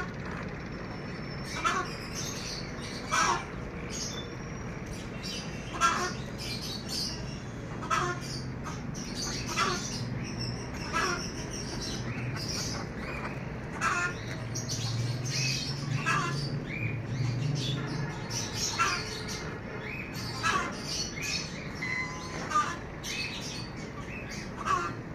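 Domestic poultry (hens and a goose) calling, with short squawks or clucks every second or two.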